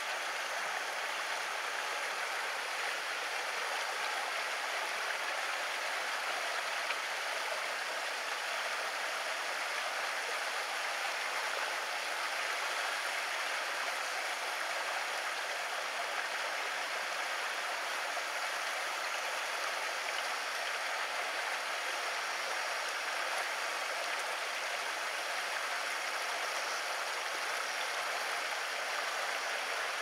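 Steady rushing of flowing water, even and unbroken.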